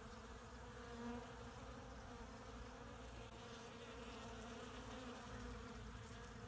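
Honey bees buzzing in a steady hum as they swarm the hive's gaps: the frenzied buzz of a robbing attack, foreign bees trying to force their way in.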